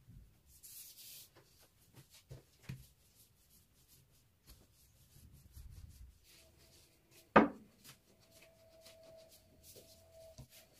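Thin baklava dough being hand-rolled back and forth around a long, thin wooden rolling pin on a floured wooden table: soft rubbing with light knocks, and one sharp knock a little past the middle.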